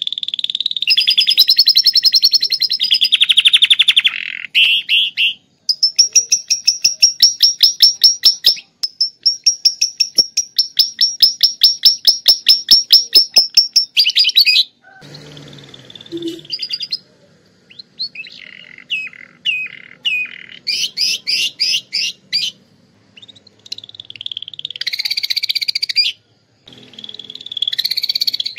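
Domestic canary singing a long, loud song of rapid trills and fast chattering runs of repeated high notes, with a short break in the middle. Its song is filled with phrases copied from lovebirds.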